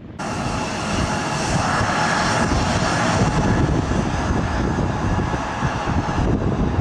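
Bombardier CRJ900 regional jet's twin rear-mounted turbofans running loudly: a deep rumble under a whine of several steady high tones. It starts abruptly and cuts off near the end.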